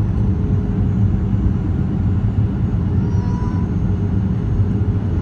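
Steady cabin noise of a jet airliner in flight, heard at a window seat beside the wing engine: a dense low rumble with a faint steady hum, as the plane descends toward landing.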